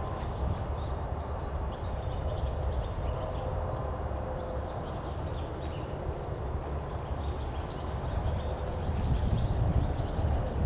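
A reining horse's hooves scuffing and thudding in soft arena dirt as it spins and stops, under a steady low rumble. Short high chirps, like small birds, come and go throughout.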